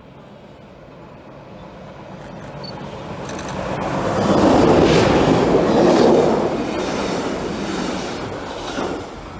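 ÖBB class 1216 Taurus electric locomotive hauling a passenger train approaches and passes, its rumble growing steadily louder to a peak about five seconds in. The coaches follow, their wheels clacking over the rail joints as the sound slowly fades.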